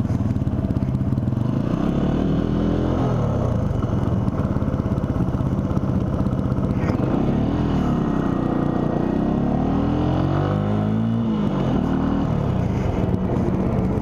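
Benelli TNT 135's small single-cylinder four-stroke engine running as the motorcycle pulls away at low speed, its pitch rising and falling a few times with the throttle.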